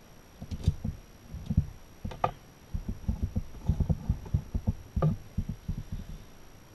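Irregular dull knocks and a few sharper clicks of hand tools and engine parts being handled on a workbench, with the metal engine case and gearbox being worked on.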